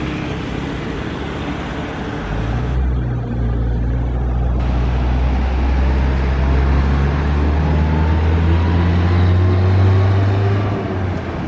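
Large bus's diesel engine running as it passes close on the road. The deep engine note swells from about two seconds in, is loudest near the end, then drops away.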